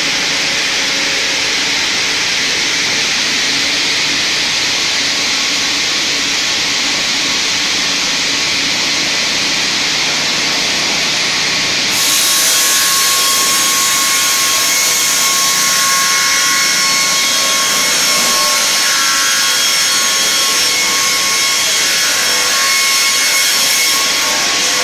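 Twin-blade circular sawmill running and sawing a spruce log, a loud steady noise of spinning blades and machinery. About halfway through the sound turns brighter, with a steady whine added.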